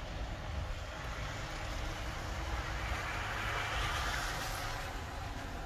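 Steady low rumble of an idling semi truck diesel engine, heard inside the cab. A soft hiss swells and fades about three to five seconds in.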